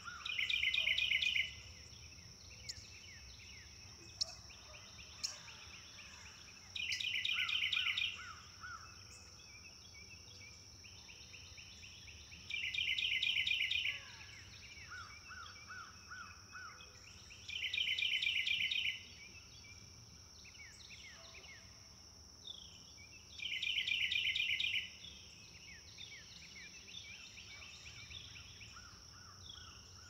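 Outdoor field sound: a short, rapid, high trill repeated about every five to six seconds, with softer lower runs of four or five notes and scattered faint calls in between, over a steady high-pitched insect drone.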